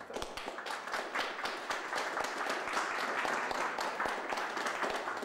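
An audience applauding: a dense patter of many hands clapping that builds over the first second and then holds steady.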